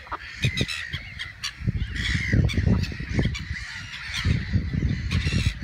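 Waterfowl calling, with goose-like honks and short high calls, over bursts of low rumbling noise.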